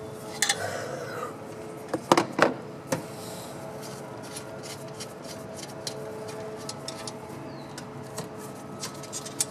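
Metal clinks and clicks of a hand wrench working on fittings: a few sharper clinks about two seconds in, then light scattered ticks, over a faint steady hum.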